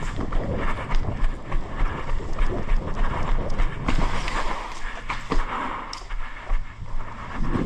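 Quick footsteps and rattling gear of an airsoft player on the move, a fast run of knocks about three to four a second over a low rumble of handling noise on a body-worn camera.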